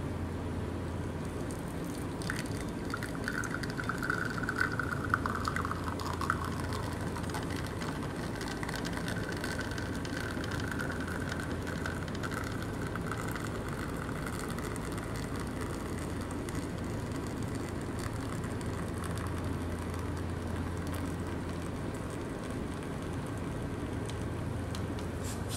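Espresso from a Leverpresso manual lever espresso maker trickling and dripping into a glass as the lever is pressed, starting about two seconds in, with a few small ticks between about four and six seconds in. A steady low hum runs underneath.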